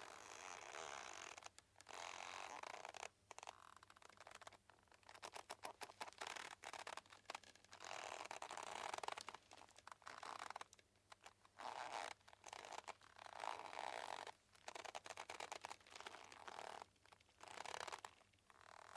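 Boat ropes creaking and squeaking as they strain and rub, in irregular drawn-out creaks of a second or two, some broken into quick runs of clicks.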